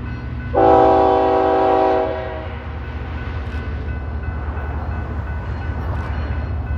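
BNSF diesel locomotives at the head of a loaded coal train sound one horn blast, a chord of several notes, starting about half a second in and lasting about a second and a half, over the steady low rumble of their engines as they approach.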